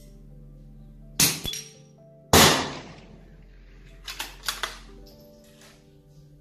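Shooting with a .22 LR rifle: two sharp cracks about a second apart, the second louder with a ringing tail, then a quick run of lighter clicks about four seconds in, over steady background music.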